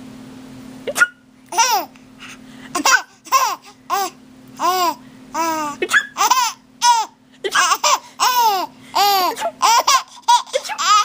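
Baby laughing in a run of short, high-pitched giggles and squeals, about two a second, each rising then falling in pitch, starting about a second in. A steady low hum runs underneath.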